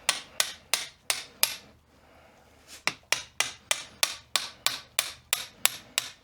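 Steady hammer taps driving the main cross pin into the Getrag 226mm limited-slip differential carrier, metal ringing briefly after each strike. The taps come about three a second, stop for about a second near two seconds in, then carry on.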